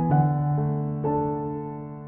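Background music: soft electric-piano chords, one struck at the start and another about a second in, the notes held and fading away.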